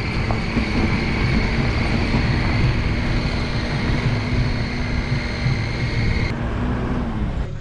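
A motor running steadily: a low hum and a high whine over rushing noise. The whine stops abruptly about six seconds in, and the hum drops in pitch just after.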